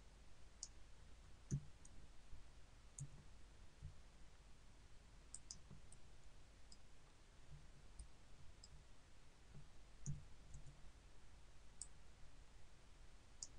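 Faint computer mouse-button and keyboard clicks, a dozen or so at irregular intervals, over a low steady hum.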